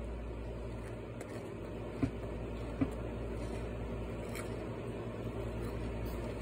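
Closed-mouth chewing of crunchy peanut butter cereal balls in milk over a steady low hum, with two sharp clicks, about two and three seconds in, from a spoon knocking the bowl.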